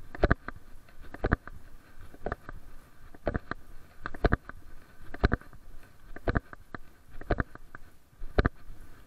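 Footfalls of a person walking a pair of leashed dogs on pavement, heard as a short double knock about once a second through a body-worn camera.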